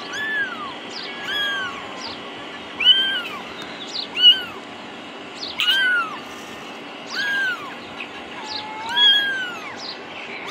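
A very young kitten, its eyes only recently open, mewing over and over: about seven high-pitched calls that rise and fall, roughly one every second and a half. It is calling for its mother.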